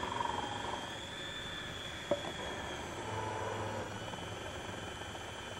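Countertop food processor's motor running steadily with a high whine, its grating disc shredding a cucumber pushed down the feed tube. A single short click about two seconds in.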